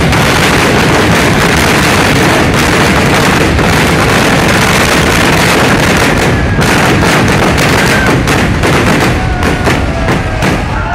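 Kerala temple-festival fireworks (vedikettu) barrage: a rapid, unbroken run of firecracker and shell blasts merging into one dense, very loud roar of explosions. Near the end the blasts thin out and a few whistling tones sound over them.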